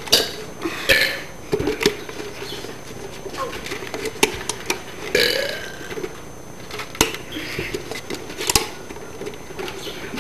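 A person burping several times in a row, the longest burp about five seconds in.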